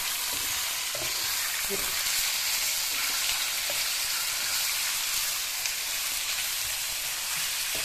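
Diced raw chicken frying in hot oil with garlic and cumin seeds in a wok: a steady sizzle, with faint scrapes now and then as a wooden spatula stirs the pieces.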